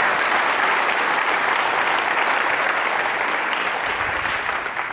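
Audience applauding: many hands clapping steadily.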